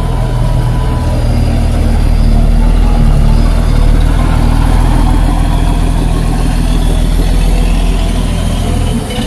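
Large intercity tour coach's diesel engine running with a steady low drone as the bus drives slowly past close by and pulls away. The drone eases off near the end.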